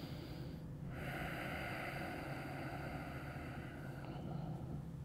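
A person's long audible breath, lasting about three seconds and starting about a second in, over a faint steady low hum.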